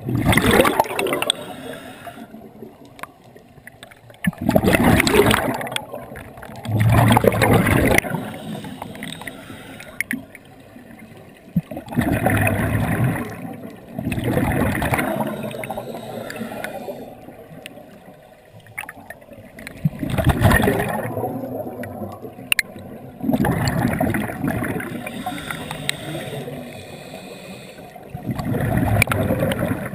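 A scuba diver breathing through a regulator underwater: bursts of exhaled bubbles gurgle past, about every three to five seconds, with quieter stretches between breaths.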